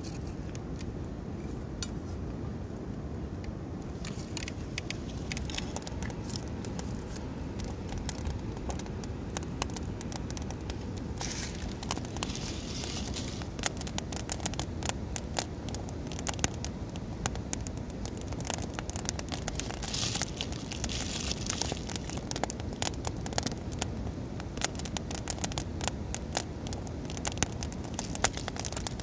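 Butter and then a steak sizzling in a frying pan over a crackling wood campfire, over a steady rush of a waterfall. The sizzle sets in about four seconds in and swells louder twice.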